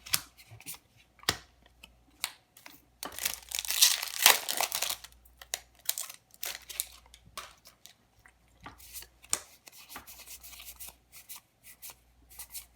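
Trading cards and crinkly plastic packaging being handled: scattered small clicks and snaps of cards, with a louder stretch of tearing, crinkling rustle about three to five seconds in.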